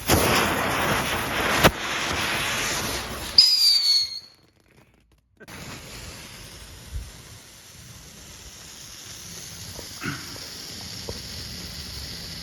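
Small novelty firework hissing loudly for about three seconds, with a sharp crack partway through. It ends in a short, loud whistle that dips slightly in pitch before cutting off. After a brief gap, a fainter steady hiss with a few small pops.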